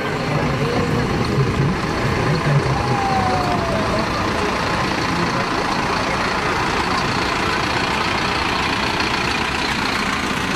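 Light truck's diesel engine running steadily as it rolls slowly past at close range, over a constant street noise.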